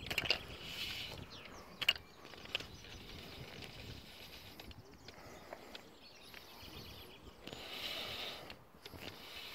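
A fly reel's click-and-pawl ratchet buzzing in several short bursts as line moves on the spool, with a few sharp single clicks about two seconds in.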